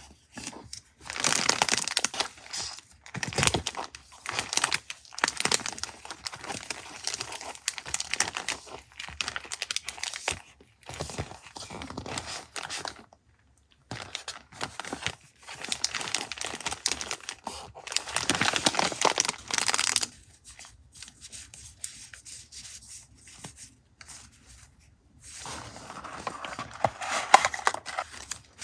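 Paper and packaging being handled, crinkled and torn, in repeated stretches of rustling with short pauses between, quieter for a few seconds near the end.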